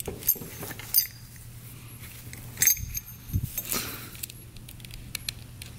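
Small metal parts of a carburetor throttle slide clicking and clinking: the jet needle, its retaining plate and spring being worked into the slide by hand. A few separate sharp clicks, the loudest about two and a half seconds in.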